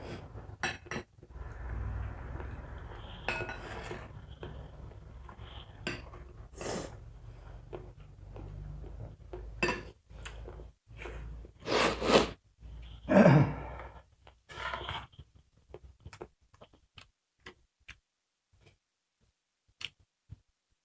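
Dishes and cutlery clinking and scraping during a meal, in scattered sharp clicks, over a low rumble that stops about fifteen seconds in. After that only a few quieter clinks are heard.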